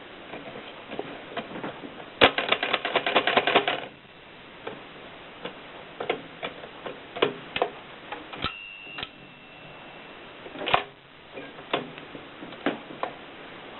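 AEG Mignon Model 3 index typewriter being operated, giving sharp mechanical clicks at uneven intervals. About two seconds in there is a quick run of rapid clicks. Past the middle, a loud click is followed by a thin ringing tone for about two seconds.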